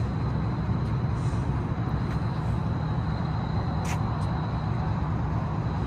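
Steady low rumble of city background noise, with no nearby vehicle passing, and a faint steady high whine above it.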